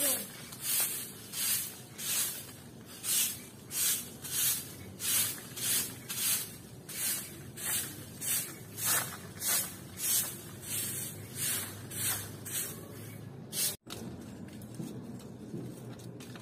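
Stick broom sweeping a concrete path, a steady rhythm of dry swishes at about one and a half strokes a second, which stop abruptly about three-quarters of the way through.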